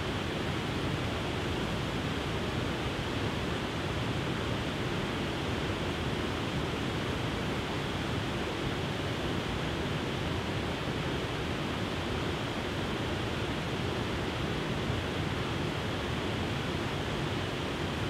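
A wide, multi-tiered waterfall cascading over rock ledges into a pool: a steady, even rush of falling water.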